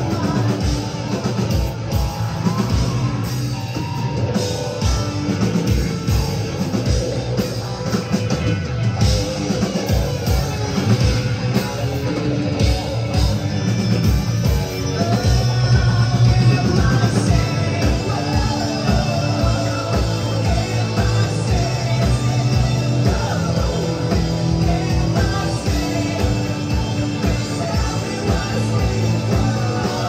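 Rock band playing live: a steady drum beat under bass and electric guitar, with a lead vocal singing over it.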